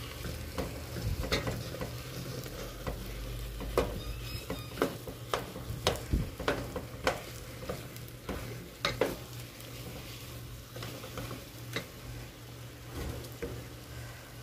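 Wooden spoon stirring and mashing boiled potatoes in an aluminium pot, knocking against the pot's side in irregular knocks about once a second, thinning out near the end. A sizzle from the hot pot and a low steady hum run underneath.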